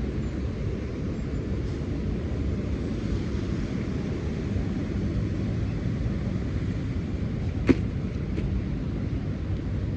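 Wind rumbling on a phone microphone, a steady low buffeting noise, with one sharp click about three-quarters of the way through.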